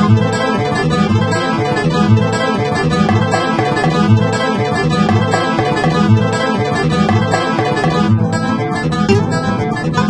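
Instrumental music of layered plucked string instruments over a low bass note that repeats steadily a bit more than once a second.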